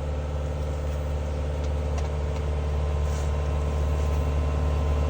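Heavy vehicle engine running steadily, a low even drone that holds without change.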